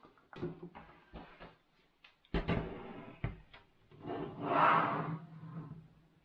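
Hardware being handled: scattered knocks and clatter, a sharp knock about two seconds in, and a longer rubbing scrape around the middle, over a faint steady hum.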